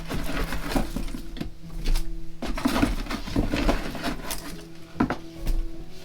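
Sweet potatoes being handled and set into a storage container: an irregular run of knocks, thuds and rustles.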